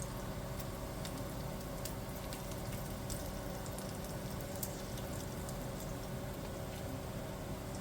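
Bacon sizzling in a frying pan: a steady crackle with scattered small pops.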